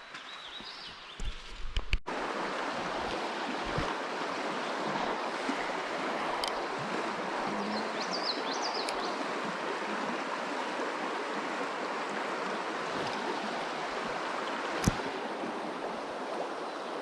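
Small stream flowing, a steady rush of water that starts abruptly about two seconds in. A bird chirps briefly near the middle, and there is a single sharp click near the end.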